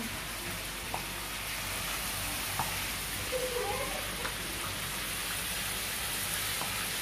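Wooden pestle mashing a wet chopped tomato salad in a clay bowl, with a few short knocks of wood on clay, over a steady hiss.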